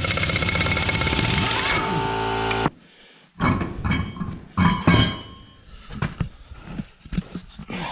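Impact wrench hammering at a very tight lug nut on a VW dune buggy wheel, cutting off about two and a half seconds in and spinning down. After a short pause come loose metal clanks and knocks as the nut and tools are handled.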